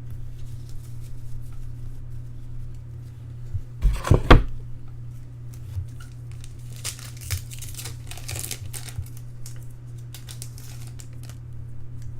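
Foil trading-card pack wrappers crinkling and tearing as packs are opened, with a cluster of thumps about four seconds in and a steady low hum underneath.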